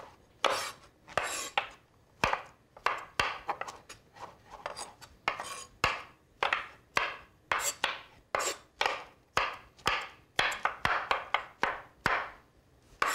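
Two chef's knives chopping mushrooms on a wooden cutting board: an irregular run of sharp knife strikes against the board, about two a second.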